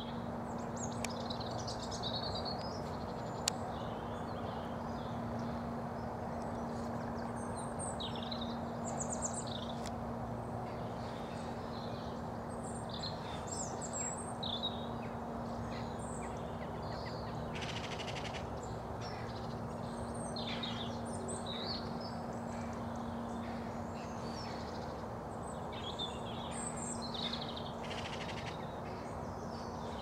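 Wild birds calling outdoors: scattered short, high chirps and calls throughout, over a steady low hum and a constant background hiss.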